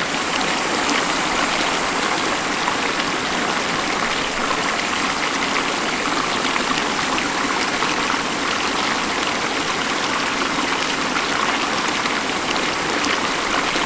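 The Beas River's fast current rushing steadily, an even, unbroken wash of water.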